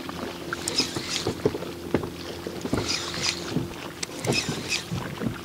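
Small waves lapping and slapping against the hull of a drifting boat in rhythmic splashes about every second and a half, with a few light knocks and a faint steady hum underneath.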